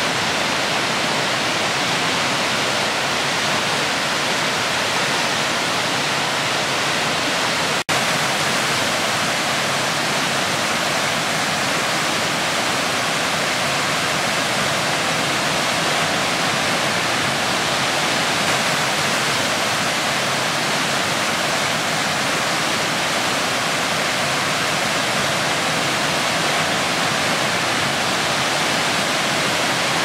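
Albion Falls, a stepped cascade waterfall, rushing steadily: a dense, even hiss of water spilling over the rock ledges. The sound drops out for an instant about eight seconds in.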